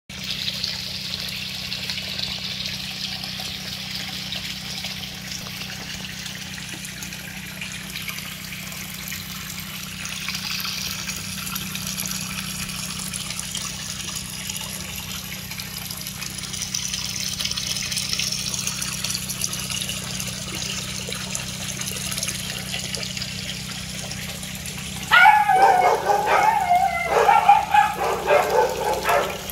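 Water from a hose pouring and splashing into a tank of water, a steady rushing noise with a low hum underneath. About 25 seconds in, a dog starts barking loudly, several barks in quick succession.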